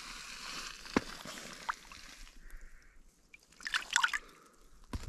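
Water in an ice-fishing hole splashing and dripping as a walleye is released back into it: small sharp splashes near one and two seconds, a quieter stretch past the middle, then a cluster of splashes around four seconds.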